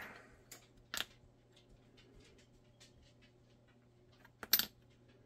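Light clicks and taps of small plastic and wooden blocking pieces being set down and handled on a plastic holster mold, with a sharp click about a second in and a louder double click near the end.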